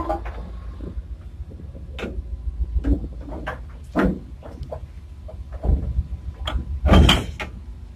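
Irregular metallic clanks and knocks at a ship's anchor windlass as the anchor is made ready for letting go, the loudest about seven seconds in, over a steady low rumble.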